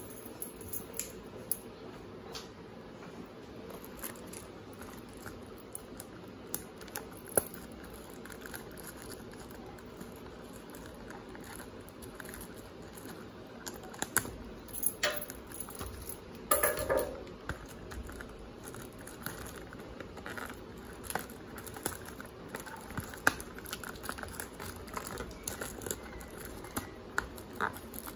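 Scattered clicks, taps and rustles of a trading-card box and its packaging being handled on a glass counter, with a longer crinkly rustle past the middle.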